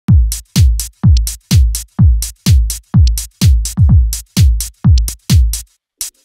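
Electronic music: a drum-machine kick drum with a deep, falling boom strikes about twice a second, each hit topped with a bright hiss. The beat stops just before the end.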